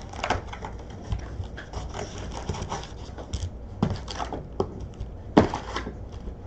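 Handling noises from opening a box of trading card packs: light rustling and scratching, with a few sharper taps about four and five and a half seconds in.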